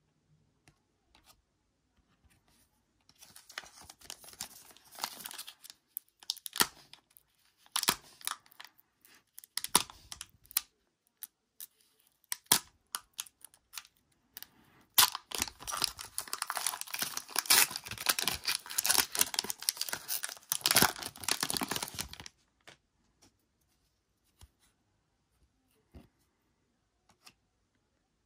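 Foil wrapper of a trading card pack crinkling and tearing as it is opened by hand, in two spells: a short one about three seconds in and a longer, louder one from about fifteen to twenty-two seconds. Scattered light clicks from handling the pack and cards in between and afterwards.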